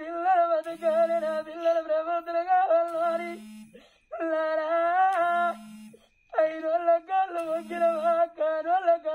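Oggu Katha folk ballad singing: a high voice holds long, wavering melodic phrases with short breaks between them. A short low tone and a bright, jingling high sound come back about every two seconds, keeping time.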